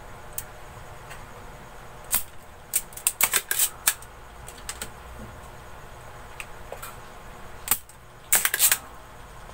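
Spring-loaded desoldering pump (solder sucker) being cocked and fired while desoldering transistors from a circuit board: sharp snaps and clicks in short clusters, about two seconds in, around three seconds in, and again near the end.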